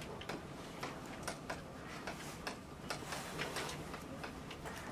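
Chalk writing on a blackboard: a run of irregular taps and short scratches as the chalk strikes and drags across the board.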